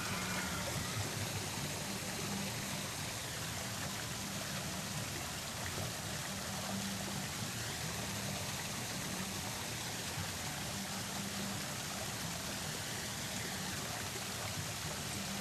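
Steady running, trickling water from a landscaped pond, over a low steady hum.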